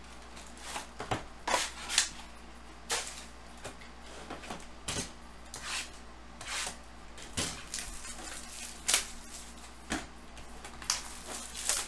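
Cardboard trading-card hobby boxes being handled and set down on a tabletop: a string of irregular light knocks and taps.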